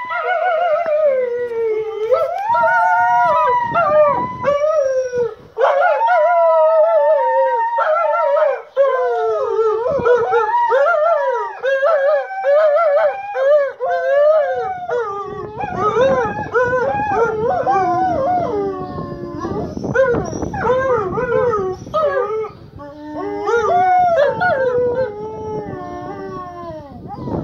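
Two wolves howling together in a long, overlapping chorus, their voices wavering and gliding up and down in pitch.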